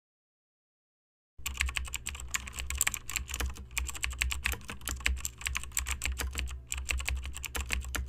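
Computer keyboard typing: a quick, irregular run of key clicks over a low hum, starting about a second and a half in.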